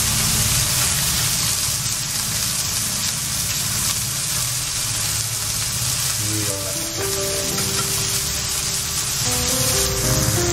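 Horse mackerel fillets sizzling steadily as they pan-fry in oil in a frying pan. Background music with a melody of held notes comes in about six seconds in.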